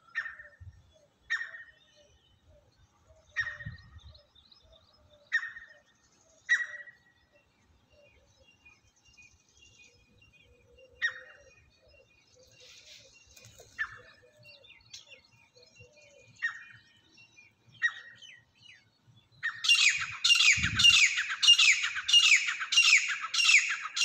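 Francolin calling: single sharp, downward-sweeping calls every second or two. Then, about twenty seconds in, a much louder rapid series of calls at about three a second.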